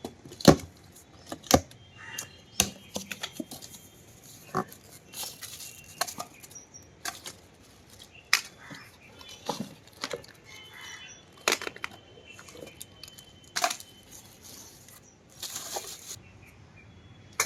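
Handling noise as the parts and accessories of a compact pressure washer are moved and set down: a string of separate sharp knocks and clicks, with short rustles of packaging about five seconds in and again near the end.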